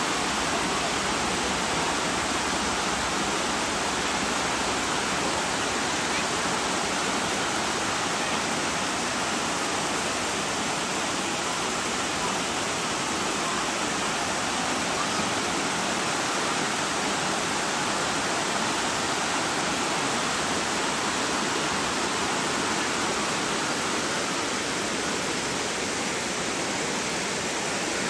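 Waterfall cascading: a steady, unbroken rush of falling water.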